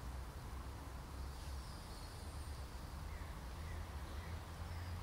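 Faint birds calling, a few short scattered chirps, over a steady low rumble.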